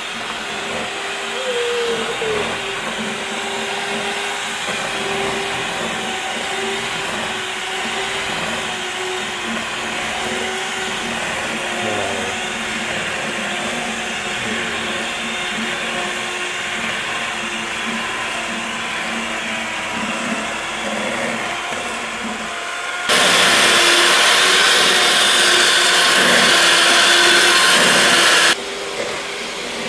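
Electric hand mixer on a stand running steadily, its beaters whisking waffle batter in a stainless steel bowl. About 23 seconds in it suddenly gets much louder for about five seconds, then drops back just as suddenly.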